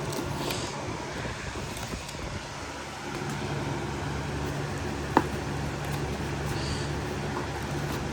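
Steady low background hum, with a single sharp click about five seconds in.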